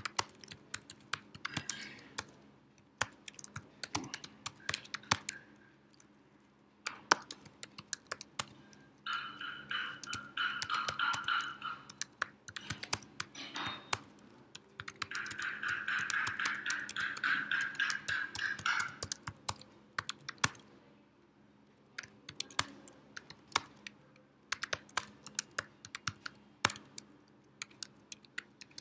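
Fast typing on a computer keyboard, an uneven run of key clicks with a few short pauses. Twice, for about three seconds each, a steady high-pitched sound comes in over the typing.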